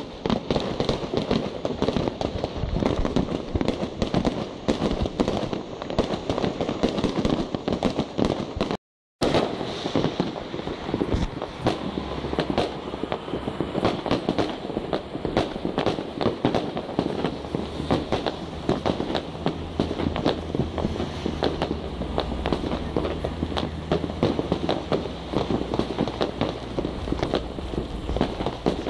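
Fireworks and firecrackers going off in a dense, continuous barrage of rapid, overlapping bangs and crackles with no let-up. The sound cuts out briefly about nine seconds in.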